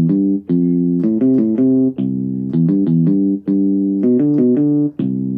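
Yamaha portable keyboard played with both hands: a left-hand bass pattern running over the notes of a C chord (root, fifth, third, fifth) under right-hand chords. The notes change several times a second in a short phrase that repeats about every second and a half.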